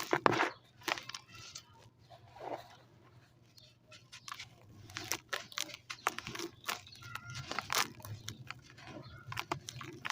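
Dry white sand crunching and crumbling in irregular crackles. The crackles are loudest just at the start, sparse for a couple of seconds, then come thick and fast through the second half.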